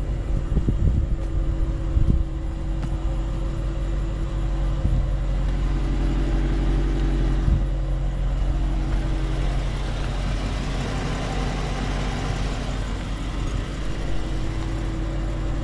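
Car engine idling with a steady, even low hum.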